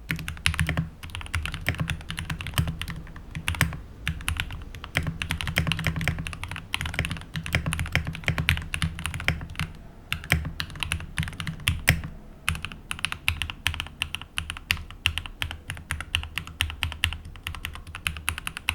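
Mechanical keyboard typed on in a fast, continuous patter of key clicks, with a few brief pauses. The keyboard is fitted with a mix of Gateron Red and Gateron Milky Yellow linear switches.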